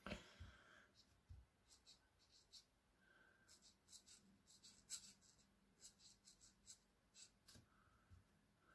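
Felt-tip pen scratching on paper in a run of quick, short strokes, several a second, as grass is flicked in at the base of a drawing; faint, with a soft knock at the very start.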